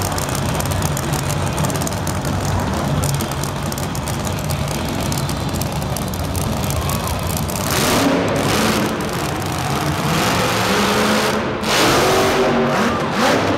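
Cool Bus monster truck's engine running at a low rumble, then revving hard about eight seconds in as the truck pulls away, and again near the end as it rears up onto its back wheels in a wheelie.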